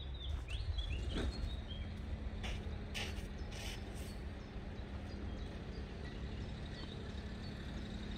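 Outdoor ambience: birds chirping during the first couple of seconds over a steady low rumble, with a few sharp knocks between about one and four seconds in.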